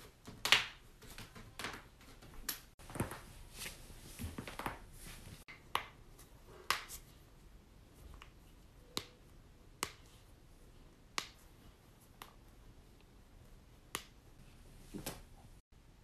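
Human joints cracking, knuckles among them: a string of single sharp pops at an irregular pace, roughly one a second.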